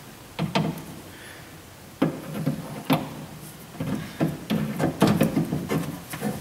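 Clunks, knocks and a few sharp metallic clicks of a power window motor being handled and fitted against the steel window regulator plate inside a car door, with more frequent knocking in the second half.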